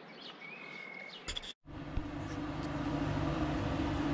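Birds chirping with one short whistle; about a second and a half in, after a brief dropout, a louder steady machine hum takes over: the river pump on its floating pontoon running.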